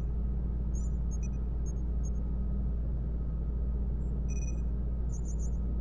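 Science-fiction space-dock ambience: a steady low rumble with a faint held tone, dotted with short, high electronic beeps and chirps, several in quick succession about four and five seconds in.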